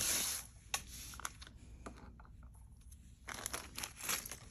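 Plastic bag crinkling as it is handled, in two spells near the start and again past the three-second mark, with a few light clicks in between.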